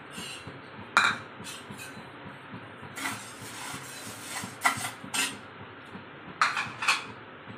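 A metal spatula scraping and knocking against a nonstick frying pan while dry red lentils (masoor dal) are stirred and dry-roasted, in short irregular scrapes and clicks.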